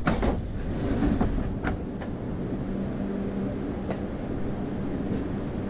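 Hawker Siddeley-built MBTA Orange Line 01200-series subway car running: a steady low rumble with a few sharp clicks. From about two seconds in, a steady hum joins the rumble.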